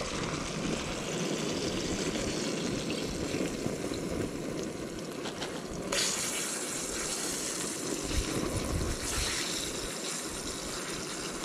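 Battered fish fillets frying in oil in a cast-iron skillet: a steady sizzle that grows louder and brighter about six seconds in.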